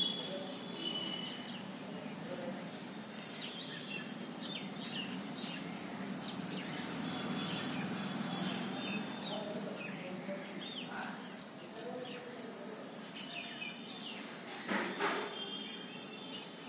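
Small birds chirping now and then, short high calls, over a steady low hum, with a couple of brief louder noises near the end.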